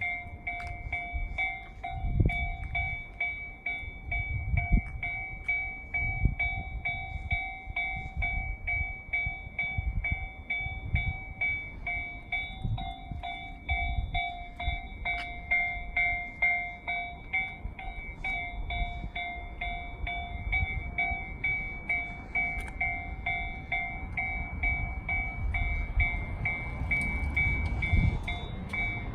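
Japanese level-crossing alarm ringing its electronic bell evenly, about two strokes a second. Under it, a freight train hauled by an EF210 electric locomotive runs past with a low rumble and repeated thuds of wheels over the rail joints.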